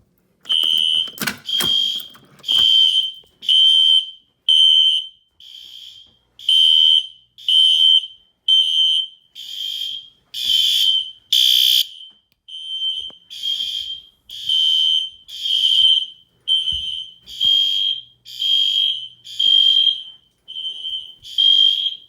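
Fire alarm horns sounding in alarm, tripped by a Fire-Lite BG-12L pull station: a high-pitched horn tone pulsing on and off a little faster than once a second. A few sharp clicks and knocks come in the first couple of seconds.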